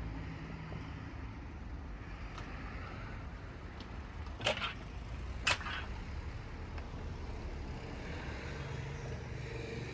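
Steady low outdoor rumble, with two sharp clicks about a second apart near the middle.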